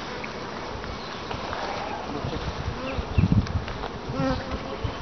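Honeybees buzzing around an open beehive, with single bees flying close past and their buzz briefly rising and falling in pitch over a steady hum. There are a few low thumps about three to four seconds in.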